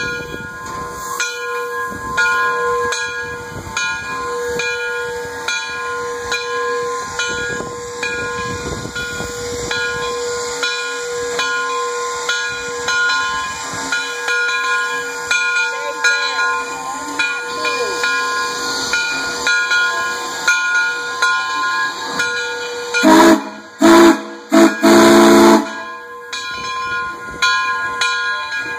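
Frisco 1630, a 2-10-0 Decapod steam locomotive, hissing steam as it moves, then sounding three short, very loud blasts on its steam whistle near the end, the last the longest: the whistle signal for backing up.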